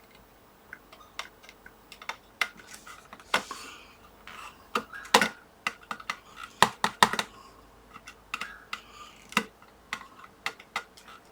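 Scattered light clicks and taps of hand tools against a circuit board and its power switch during desoldering, irregular, with a few louder knocks about five and seven seconds in.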